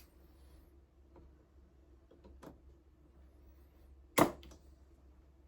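A single sharp snap about four seconds in, with a few light clicks before it over a faint steady hum: the spring-loaded vacuum pump of a heated desoldering iron firing to suck melted solder off a circuit-board relay pin.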